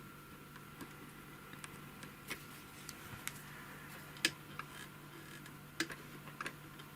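Faint, irregular small clicks and ticks from hand adjustment of a Necchi 559 household sewing machine's hook (shuttle) assembly as it is nudged back into position, over a faint steady hum.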